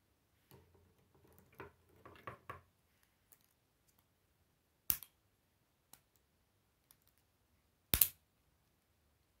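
K'nex plastic rods and connectors being handled and pressed together: a run of small clicks and rattles, then two sharp snaps about three seconds apart as pieces click into place, the second the loudest.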